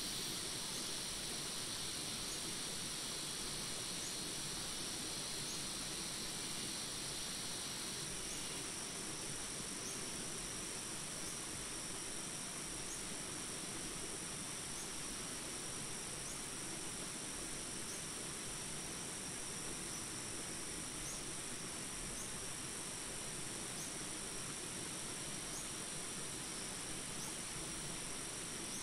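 Steady rain-sound ambience: an even hiss with a high, steady insect drone on top and a faint chirp repeating about every second and a half. A higher band in the drone fades out about eight seconds in.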